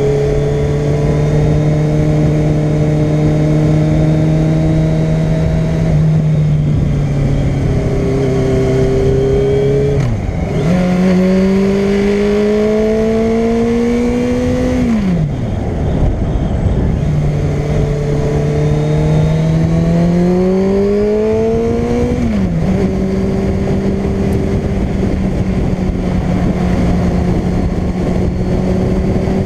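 Yamaha sport bike engine running under a steady rush of riding wind. Its pitch holds level, then climbs through two long accelerations, dropping sharply at each gear change, and settles to a steady cruise for the last few seconds.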